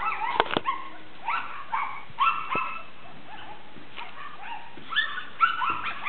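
Pekeatese puppy yipping and whimpering in short, high-pitched cries that come in bouts, with a lull in the middle.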